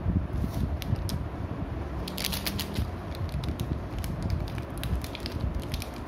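Foil drink-powder sachet crinkling and crackling as fingers handle it, in a run of quick irregular clicks that is densest about two seconds in.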